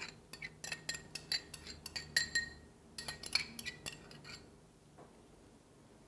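A spoon clinking and scraping against glass bowls while mayonnaise is scooped from one bowl into another. It is a quick run of light clinks that stops about four seconds in.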